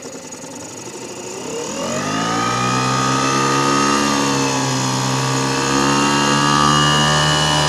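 Yamaha 2 hp two-stroke outboard motor throttled up from low revs: its pitch climbs over about a second and a half, starting around a second in, then it runs steadily at high revs, pushing the boat under way.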